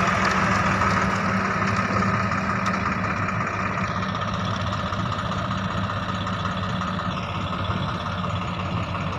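Diesel engine of an Ace AX-130 backhoe loader running steadily with an even low hum, easing off slightly after the first few seconds.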